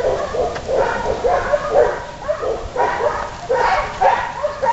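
A police dog whining and yipping over and over in short, high, pitch-bending cries, about two or three a second.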